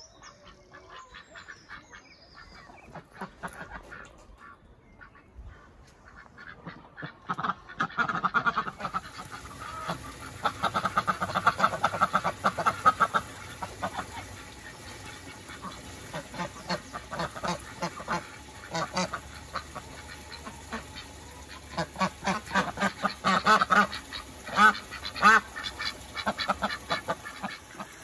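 White domestic ducks quacking, with many quick calls in bunches that are loudest in the middle and again near the end.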